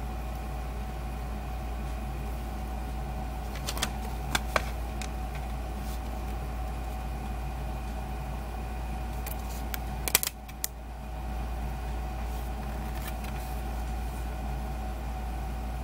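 Plastic CD jewel case being handled, giving a few sharp clicks and taps about four seconds in and a louder cluster about ten seconds in, over a steady low hum.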